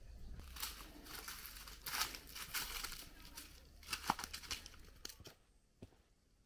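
Footsteps crunching and rustling on dry leaves and dirt, in irregular bursts over a low rumble. About five seconds in it drops quieter to a few soft, separate footfalls on the dirt path.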